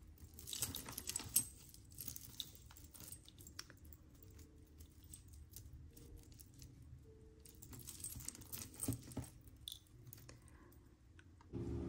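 Tangled metal jewelry chains and pieces being picked apart by hand: faint metallic jingling and small clicks of links and pendants, busiest about half a second in and again around nine seconds.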